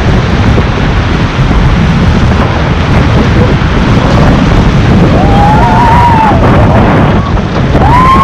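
Loud rush of whitewater through a river rapid, with heavy wind buffeting the microphone. About five seconds in, a long, drawn-out shout rises over the water.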